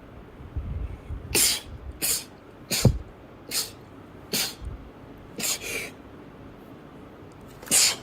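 A girl sneezing in a rapid run of about seven short, sharp sneezes, one after another, with a longer pause before the last.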